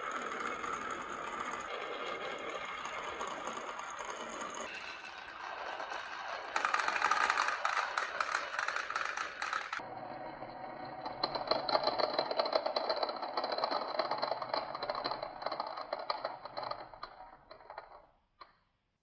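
Many marbles rolling and clattering down a marble run track, a dense rapid rattle of small clicks. It changes in tone a few times, then thins out near the end into a few last clicks as the marbles finish.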